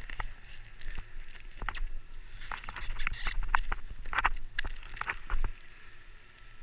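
Irregular crunching and scraping in packed snow with sharp clicks as a snowboarder works his bindings and shifts the board, dying down after about five and a half seconds. A low steady rumble of wind on the camera microphone runs underneath.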